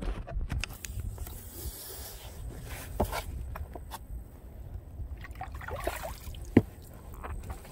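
Water sloshing and dripping around an electric RC catamaran's hull as it is pulled from the water at a dock, with a low rumble and two light knocks, about three seconds in and near the end.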